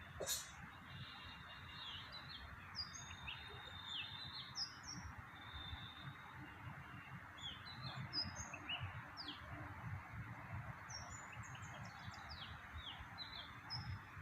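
Several birds chirping, with many short high notes that rise or fall, over a steady background hiss. A sharp click sounds just at the start.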